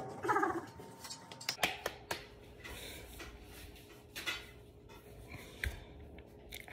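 Sheet-metal wall cabinet doors clicking shut, followed by a few faint light clicks and taps.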